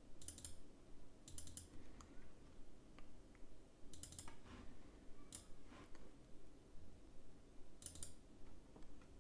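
Computer mouse clicking: faint short runs of quick clicks, five or so clusters spread a second or more apart, with a few single ticks between them.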